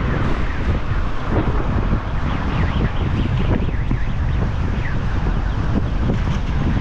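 Strong gale-force wind buffeting the microphone: a loud, steady rumble of noise heaviest in the low end.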